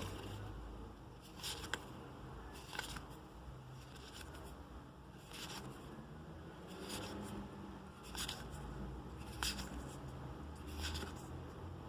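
Trading cards and their packaging being handled: short crisp rustles and snaps about a dozen times, roughly a second apart, over a low hum.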